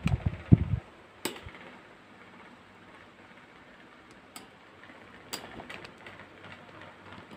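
Handling noise: low bumps and rubbing in the first second, then a few sharp, isolated clicks spaced a second or more apart.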